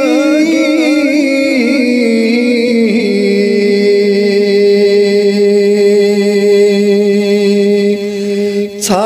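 A man singing a Kashmiri devotional song. Ornamented phrases with a wavering pitch give way, about three seconds in, to one long held note of some five seconds. After a brief break for breath near the end, the singing resumes.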